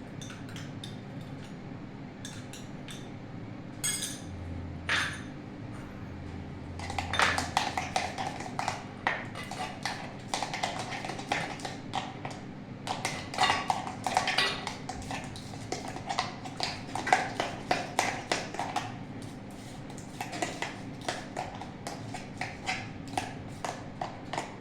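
Cake batter being beaten by hand in a bowl after the baking soda goes in: a utensil knocking and scraping against the bowl. A few separate knocks at first, then quick, irregular strokes from about seven seconds in.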